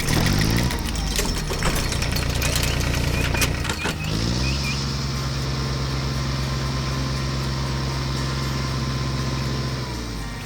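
Cartoon vehicle sound effects: clicks and clattering with sliding tones for the first few seconds. About four seconds in, an engine revs up and then runs steadily, cutting off near the end.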